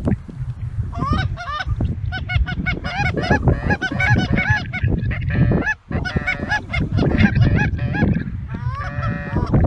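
Geese honking: many quick, overlapping honks that come thick from about a second in, pause briefly past the middle, then resume with a longer drawn note near the end. A steady low rumble of wind on the microphone runs underneath.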